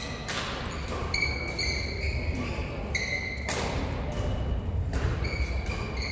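Sports shoes squeaking in short high chirps on a wooden hall floor, with three sharp hits of a badminton racket on a shuttlecock ringing through the hall.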